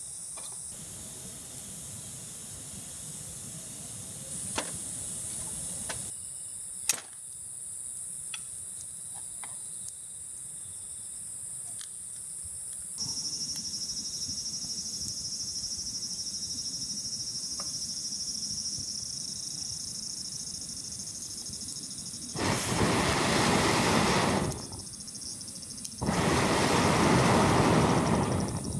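Summer insects droning steadily at a high pitch, with scattered sharp clicks and taps. Near the end come two loud rushing noises, each about two seconds long.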